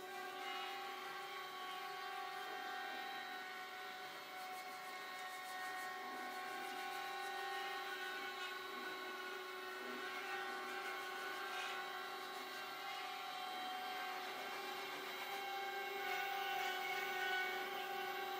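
An electric machine motor running with a steady, fixed-pitch whine.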